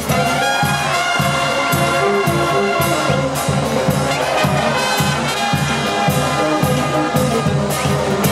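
Brass band playing: trumpets and trombones carry the melody over tubas and percussion, with a steady low beat about twice a second.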